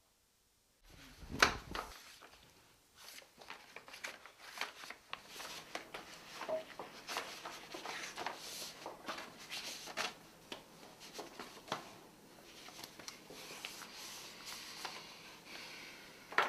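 Sheets of paper rustling and crinkling as they are unfolded and handled, with irregular light clicks and taps. A sharp knock about a second and a half in is the loudest sound.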